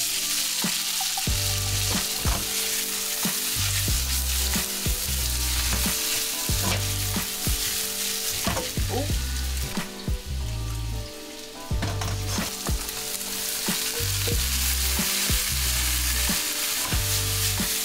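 Diced meat frying in beef tallow in a hot wok, sizzling steadily while a wooden spatula stirs and tosses it, with short scrapes and clicks against the pan. A soft background beat runs underneath.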